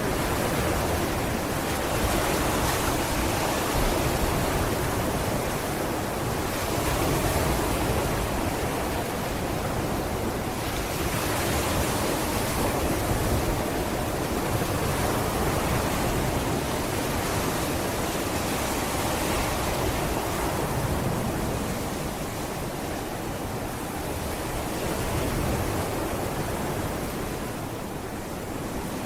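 Sea waves breaking and washing up a sandy beach: a continuous rushing surf that swells and eases every few seconds.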